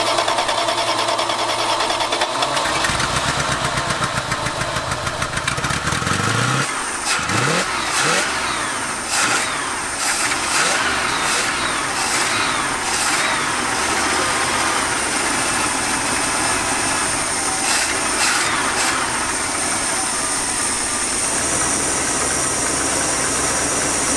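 1977 Dodge D150 Adventurer's carbureted engine running, its speed climbing twice between about three and seven seconds in and then settling back. It is running rich, with fuel leaking in somewhere even with the idle mixture screws closed all the way and the choke wide open.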